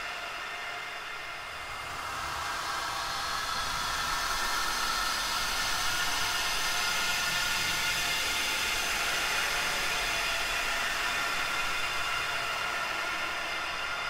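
Halloween sound effect of ghostly wails of the dead, heard here as a dense hissing drone with faint held tones in it, swelling louder about two seconds in and then holding steady.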